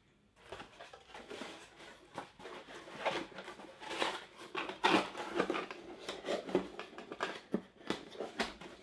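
Crinkling and rustling of plastic packaging handled by hand, with irregular sharp clicks and crackles.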